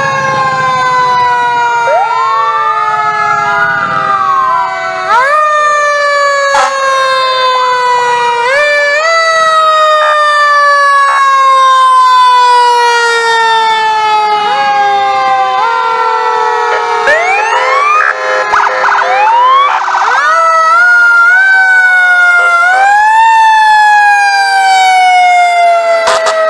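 Several fire engine and ambulance sirens wailing together as the vehicles pass. Long tones fall slowly and are pushed back up again and again, with fresh rising wails about two seconds in and again between about 17 and 20 seconds in.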